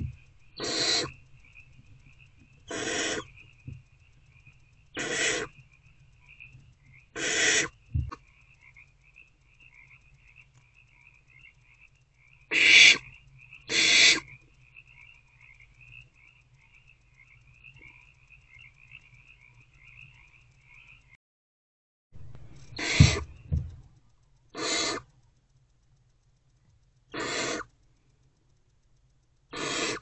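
Barn owl nestlings giving raspy, hissing begging calls, each about half a second long and repeated every couple of seconds, with a pause in the middle. A faint fast trill runs behind the calls until it cuts off about two-thirds of the way through.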